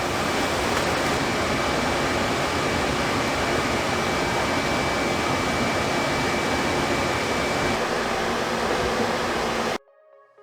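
Steady sizzling hiss of mushrooms and greens cooking in melted butter and chicken broth in a large pan on medium heat, cutting off abruptly near the end.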